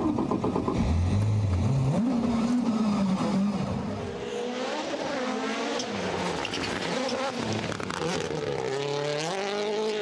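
Rally car's turbocharged four-cylinder engine revving hard at speed, its pitch climbing and dropping back several times through gear changes, with tyre and gravel noise.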